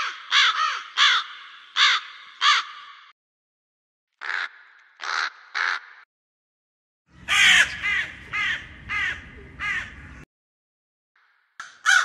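Crow cawing in three runs of hoarse caws: about six, then three, then about six, with short silent gaps between them. A low rumble sits under the last run.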